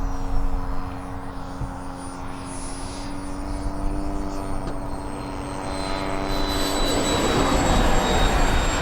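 A radio-controlled model aircraft flying: a steady engine drone with a high whine that slowly falls in pitch, and a rushing noise that grows louder toward the end as it passes.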